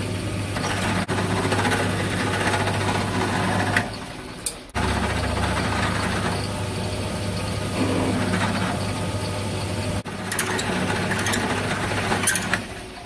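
Milling machine's motor running steadily while a twist drill bores into an aluminium block, with the cutting noise over the hum. About four seconds in the sound drops away briefly, then the hum resumes at a deeper pitch.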